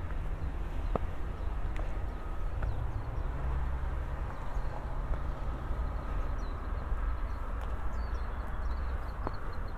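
Footsteps climbing concrete steps, over a steady low rumble.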